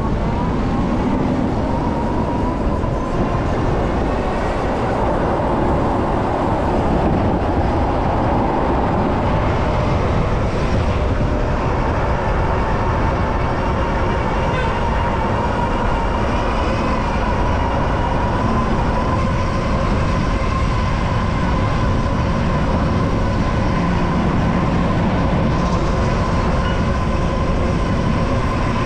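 Steady wind rumble and road noise while riding a Super73 ZX electric bike in traffic, with a steady whine that drifts a little in pitch.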